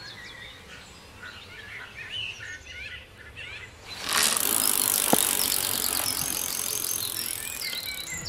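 Small birds chirping and twittering. About halfway through, a loud steady hiss suddenly sets in over them, with one short falling tone a second later.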